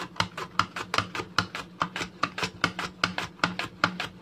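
Raw plantain being sliced on a handheld mandoline slicer set thin for chips: quick, even back-and-forth strokes across the blade, about five a second, each a short scrape as a slice comes off.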